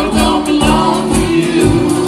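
Jug band playing live: fiddle, mandolin and guitars over a bass beat about twice a second, with crisp percussion strokes and voices singing together.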